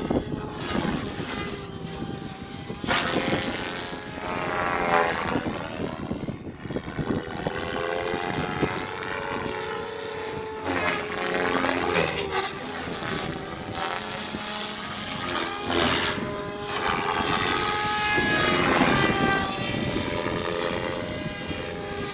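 Electric Compass eXo RC helicopter flying at about 2350 rpm headspeed: a rotor and motor whine that swings up and down in pitch and grows louder several times as the helicopter manoeuvres and passes close. Wind noise runs underneath.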